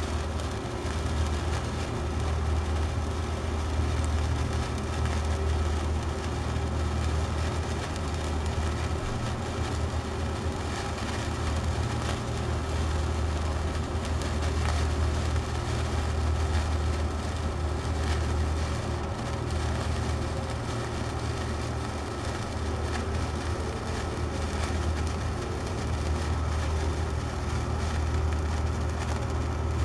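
Gold sparkler burning with a steady crackling fizz of fine ticks, over a constant low hum that is the loudest part of the sound.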